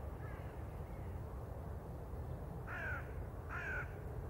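Crow cawing: two loud caws with falling pitch about three and three and a half seconds in, and a faint call near the start, over a low steady rumble.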